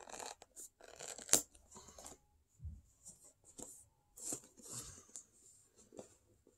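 A cardboard box being ripped open by hand: irregular tearing and rustling of cardboard and packaging in several bursts, with one sharp snap about a second and a half in.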